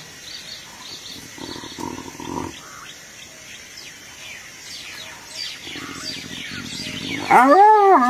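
Hyenas fighting: near the end one gives a loud call lasting about a second that rises and then falls in pitch, cut by a brief break. Birds chirp faintly in the background.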